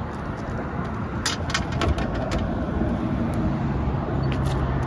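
Road traffic running by at the roadside, with a few sharp clicks around the middle. A steady low engine hum comes in about three and a half seconds in.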